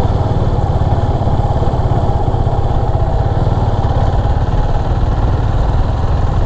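Motorcycle being ridden at a steady pace, its engine running under a dense, even low rumble.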